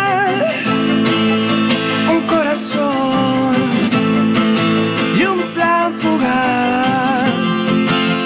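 Live acoustic music: a strummed acoustic guitar with a wavering, vibrato-rich melody line over it, most likely a violin playing an instrumental passage.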